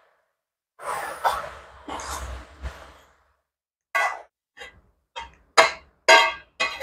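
A ladle stirring and scraping a vegetable stir-fry in a metal wok, a rustling noise with a couple of knocks. From about four seconds in come several short pitched sounds, each fading quickly.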